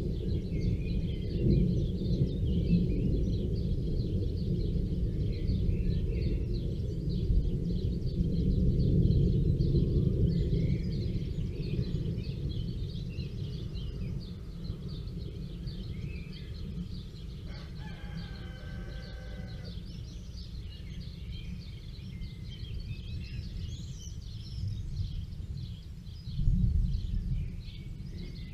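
A rooster crows once about two-thirds of the way through, with small birds chirping throughout. Under them runs a deep low rumble, loudest in the first ten seconds and fading after.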